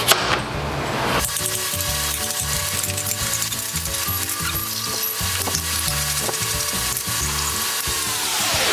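Background music with held chords and a hissy top, starting about a second in; near the end the whole of it slides down in pitch and stops, like a tape-stop effect. Just before the music, a knife cuts through sweet potato onto a wooden cutting board.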